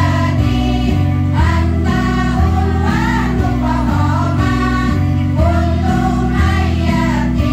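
Women's choir singing sholawat in unison through microphones over amplified backing music with a deep bass line.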